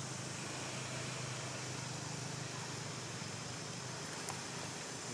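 Steady outdoor background: a low steady hum under an even high hiss, with only a faint tick about four seconds in and no monkey calls.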